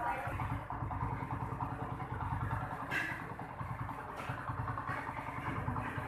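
Honda CD 70's small single-cylinder four-stroke engine running steadily at idle, with one brief sharp sound about halfway through.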